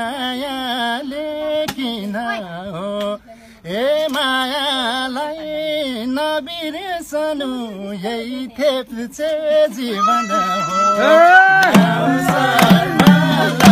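A man singing a Nepali dohori folk song, one melodic line with wavering, ornamented pitch. Near the end a fuller, louder layer of music comes in.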